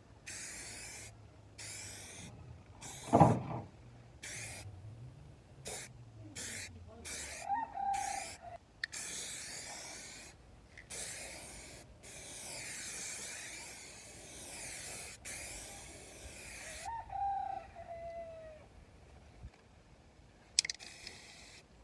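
Aerosol can of zinc primer spraying in a run of short bursts, then one long pass of several seconds in the middle, applying a primer coat. A loud knock about three seconds in, and a bird calls twice.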